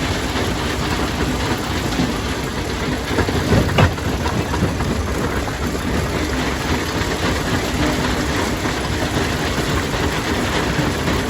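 Stone crusher running: steady, heavy machinery noise, with a short burst of louder knocks about three and a half seconds in.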